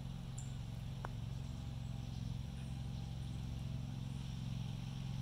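Steady low engine drone in the background, with a faint click about a second in from the putter striking the golf ball.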